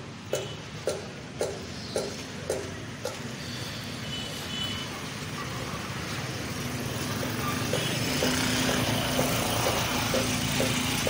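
Street traffic noise: a motor vehicle's engine hums steadily and grows louder through the second half. In the first three seconds there is a regular series of short, ringing knocks, about two a second.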